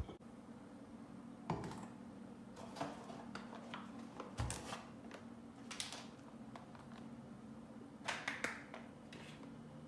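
Scattered light clicks, taps and brief rustles of food preparation being handled, with one dull thud about four and a half seconds in.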